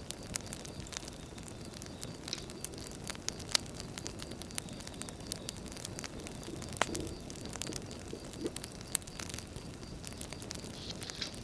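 Wood fire burning, crackling with irregular sharp pops over a steady low hiss.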